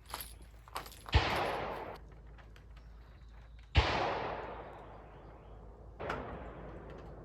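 Three gunshots from a 9mm pistol: two loud shots about two and a half seconds apart, each followed by a long fading echo, then a fainter shot near the end.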